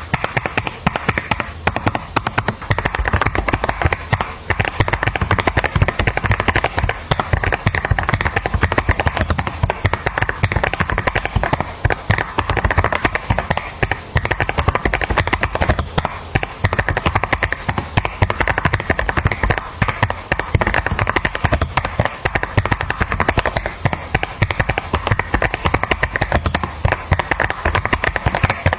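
Fast, continuous typing on a mechanical keyboard fitted with custom keycaps: a dense, steady stream of key clacks.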